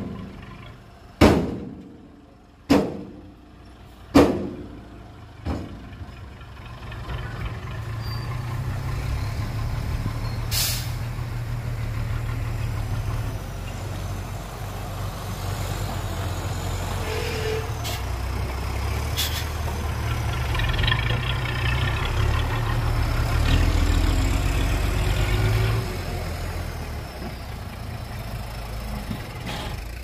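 Five heavy metallic bangs about a second and a half apart, then a heavy diesel engine running under load, swelling and easing, with a brief air hiss about ten seconds in.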